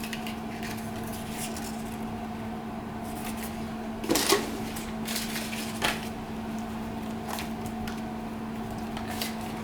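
Unboxing handling noise: a few short rustles and knocks from the docking station's packaging and power adapter being handled, a little past the middle and again near the end, over a steady low hum.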